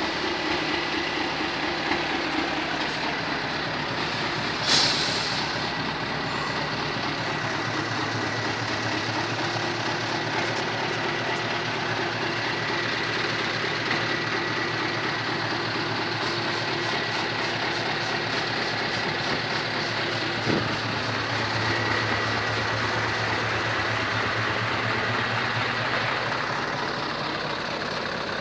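Scania R580's V8 diesel engine idling steadily, with a brief hiss about five seconds in.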